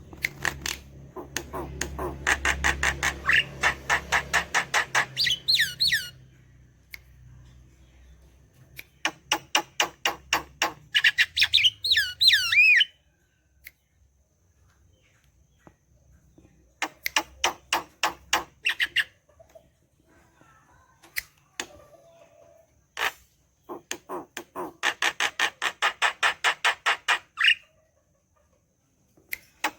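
Javan myna calling in four bouts of fast, harsh repeated chattering notes, each bout ending in a few curling whistled notes, with quiet pauses between the bouts.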